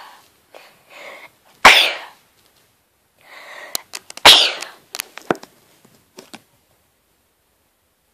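A person sneezing twice, loud and sudden, each sneeze coming after a short gasping intake of breath. The sneezes are brought on by tickling the inside of the nose with a small stick.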